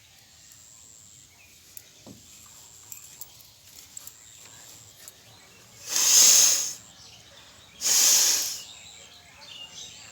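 A person forcefully blowing their nose twice, each a loud hissing blast of air under a second long, about two seconds apart.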